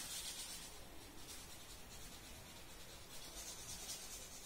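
Crayon rubbing on paper in faint, repeated colouring strokes, with a soft scratchy hiss that comes and goes.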